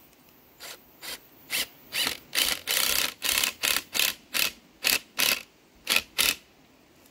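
Cordless drill driving screws through the weta box's bracket into the tree trunk, run in about a dozen short bursts, with the longest ones in the middle.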